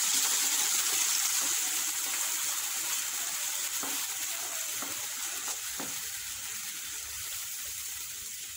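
Dal and coconut paste sizzling as they hit hot oil tempered with mustard seeds and dried red chillies, the sizzle dying down steadily. A spoon stirs through it, with a few faint taps about halfway through.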